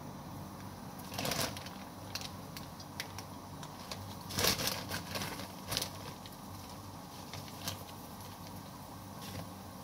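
Breaded chicken frying in oil in a frying pan: a steady sizzle with scattered crackles and pops, the loudest bursts about a second and a half and four and a half seconds in.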